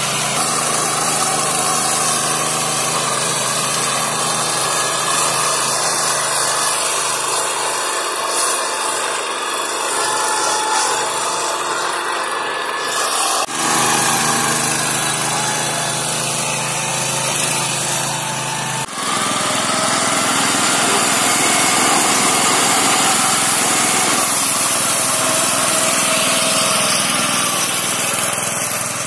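Engine of a Neva walk-behind tractor running steadily under load, driving a Zarya rotary mower whose discs cut through tall, dense grass. The sound breaks off briefly twice, near the middle and again about two thirds in.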